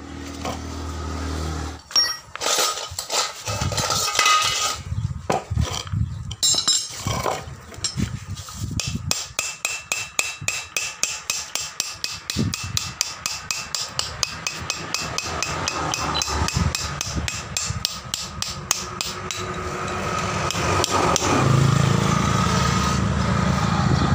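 Hammer blows on the steel body of a hydraulic bottle jack: a few irregular strikes, then a rapid even run of about five blows a second. Near the end the strikes give way to a steady low rumble.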